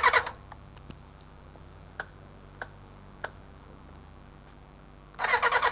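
1993 Suzuki Bandit 400 motorcycle being cranked on its electric starter, the engine turning over in an even rapid rhythm without catching: a non-starting engine. The cranking stops just after the start and leaves a pause with three light clicks. It starts again about five seconds in.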